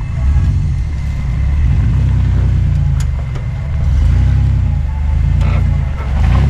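Engine of a lifted 4x4 GMC Safari van working at low speed while it crawls over rocks, its level rising and easing several times as the throttle is fed in and let off.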